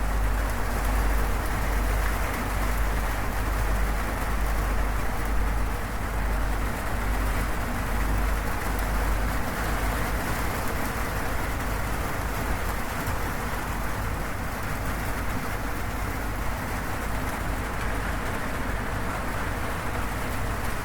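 Steady heavy rain drumming on a zinc roof, with a deep rumble of thunder under it through the first half that fades away.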